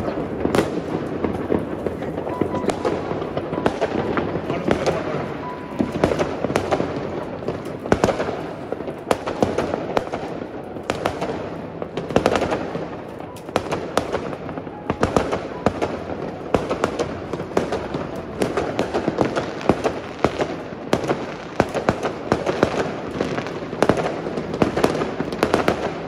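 Many fireworks and firecrackers going off at once, a dense, unbroken crackle of bangs with sharper, louder reports every second or two.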